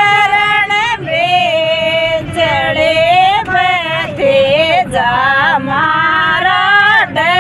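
Women singing a Rajasthani folk song, a bhat geet, together in long held, wavering phrases with short breaks between them. A steady low rumble runs underneath.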